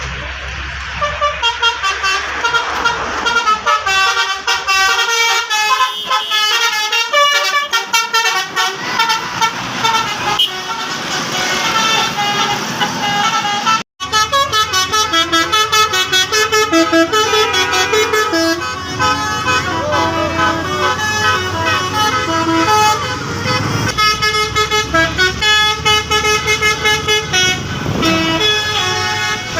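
Bus telolet horn of the Basuri type playing rapid multi-note tunes, short horn notes stepping quickly up and down in runs. The sound cuts out suddenly for a moment about halfway through, then the tunes start again.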